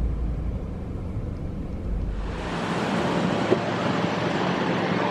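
Outdoor wind noise: a low rumble of wind on the microphone, which about two seconds in gives way to a steady, even rushing hiss.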